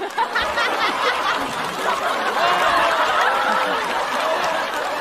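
A large studio audience laughing together: many voices at once, rising suddenly at the start and holding steady.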